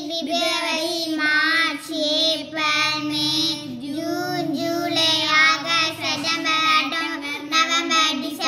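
A child singing a slow sing-song tune of long held notes with short breaks between phrases, reciting the months of the year.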